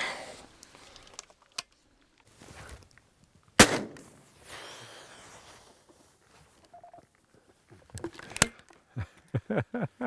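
Two shotgun shots about five seconds apart, the first a little under four seconds in and the louder of the two.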